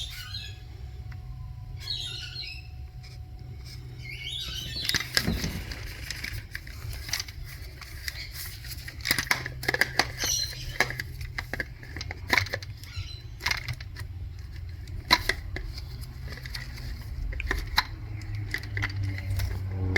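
Scattered clicks, knocks and rustling of hand work as a new fuel pump module is fitted into the fuel tank, over a steady low hum.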